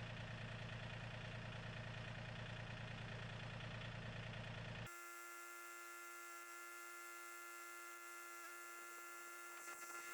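Faint steady hum of an idling tractor engine. About five seconds in it cuts off abruptly and gives way to a thinner, higher steady hum.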